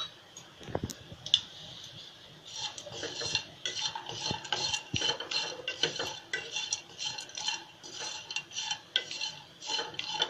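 Wooden spatula stirring thin coconut slices roasting in a nonstick kadhai. After a couple of knocks, it settles about two and a half seconds in into quick, repeated scraping strokes against the pan, about two a second.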